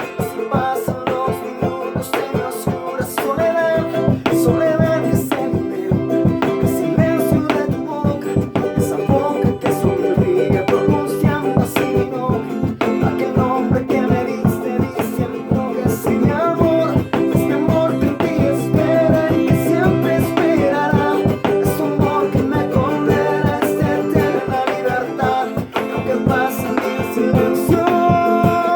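Acoustic guitar strummed in a steady Bolivian folk rhythm, with a melody carried over it. A low bass part joins about four seconds in.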